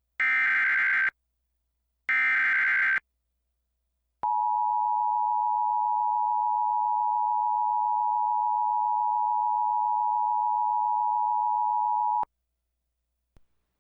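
Emergency Alert System tones: two buzzing SAME header data bursts about a second long each, close together, then after a short gap the EAS two-tone attention signal (853 and 960 Hz), a steady dual tone held for about eight seconds that cuts off suddenly.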